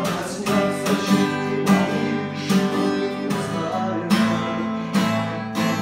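Cutaway steel-string acoustic guitar strummed in a steady rhythm, chords ringing between the strokes.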